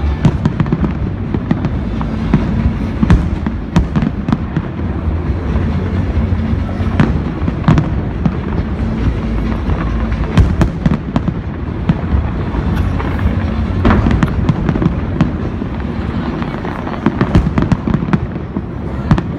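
New Year's fireworks display going off continuously: a steady deep rumble of bursting shells with many sharp bangs and crackles coming in quick succession.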